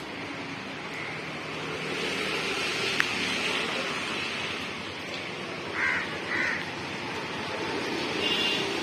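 Steady hum of road traffic, with a crow cawing twice about six seconds in and a single sharp click about three seconds in.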